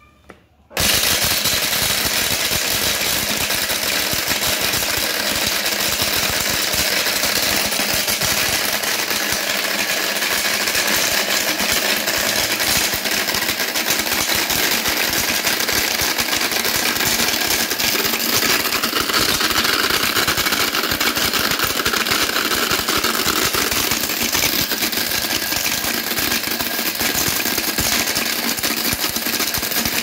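24 V battery-powered DC mixer grinder switched on about a second in, its motor and blade spinning in a stainless steel jar. It runs loud and steady after that.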